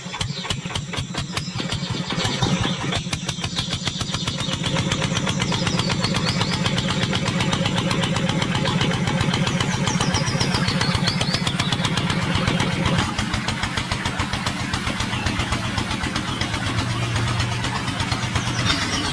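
A small electric motor of a miniature model water pump switched on and running with a steady, fast whirr, as water from its outlet pipe pours and splashes into a small basin. The motor's hum shifts lower about two-thirds of the way through.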